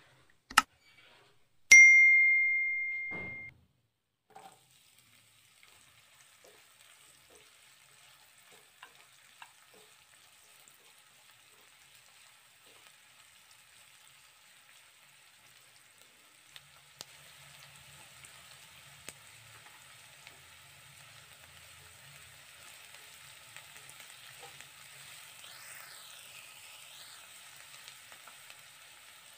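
A single sharp metal clang about two seconds in, ringing for about a second and a half, is the loudest sound. Then chopped onions with cumin seeds fry in oil in a nonstick kadai with a faint sizzle, stirred with a silicone spatula; the sizzle gets louder in the second half.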